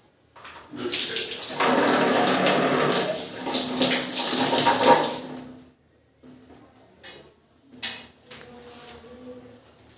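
Water rushing loudly for about five seconds, then cutting off, followed by quieter handling sounds and a sharp click near the end.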